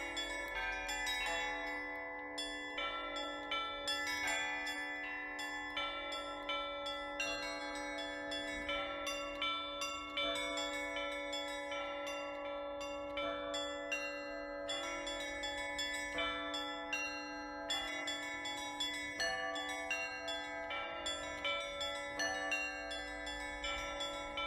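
Russian Orthodox church bells rung as a trezvon: quick, overlapping strikes of the smaller bells, several a second, over the steady hum of a lower bell.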